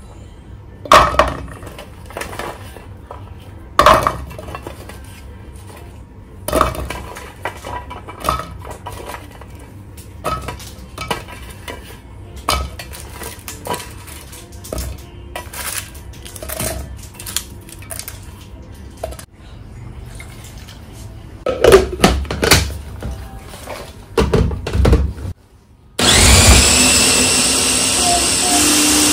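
Chillies, garlic cloves and shallots dropped into a plastic chopper cup and a metal tray handled: a series of knocks and clatters. Near the end an electric chopper blender starts, its motor spinning up into a steady whine as it grinds the chilli spice paste.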